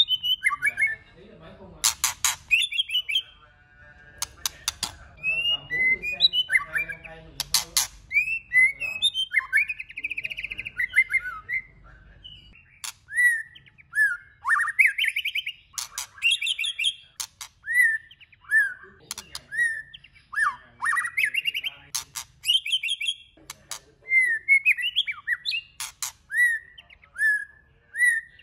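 White-rumped shama singing a long, varied song: clear whistled phrases that glide up and down, one after another, mixed with sharp clicking notes.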